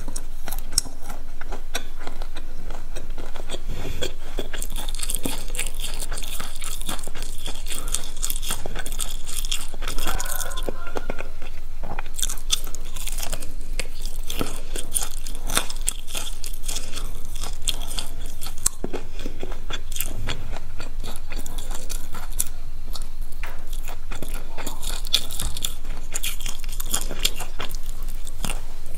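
Biting into and chewing crispy Korean fried food (twigim), a dense run of crisp crunches.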